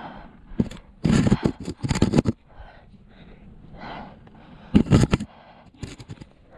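Granite rock being scraped and rubbed by a climber's hands, shoes and clothing close to a body-worn camera. The sound comes in two loud rough bursts, one about a second in and a shorter one about five seconds in, with a smaller scuff near the end.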